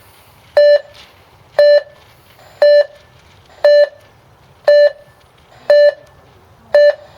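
Race start timer beeping once a second, seven short pitched beeps in a row, counting down between the 30- and 20-second calls to the start of an RC yacht race.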